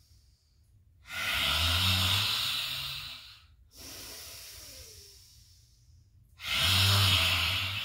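A woman doing lion's breath: two loud, forceful open-mouthed exhales with the tongue out, each lasting about two seconds with a low voiced rasp in it, and a quieter inhale through the nose between them.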